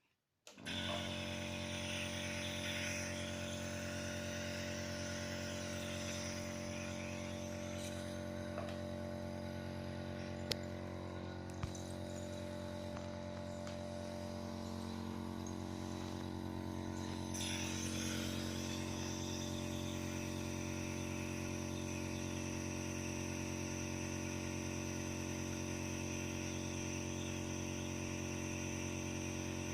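Compressor nebulizer starting up abruptly and running with a steady buzzing hum and a hiss of air, delivering the mist. Two light clicks come about halfway through.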